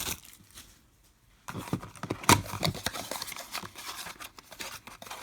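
Trading card packs and their cardboard hobby box being handled: rustling, light taps and clicks as the packs are taken out, with one sharper knock. The handling starts about a second and a half in, after a short quiet.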